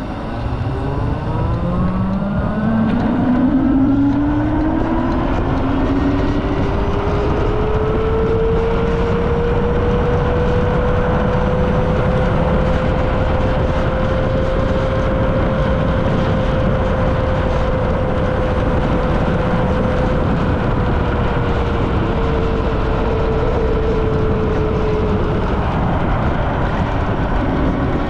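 Super Soco TC Max electric motorcycle's motor whine, rising in pitch as it accelerates over the first several seconds, then holding steady at cruising speed and dipping slightly near the end. A steady rush of wind on the microphone runs underneath.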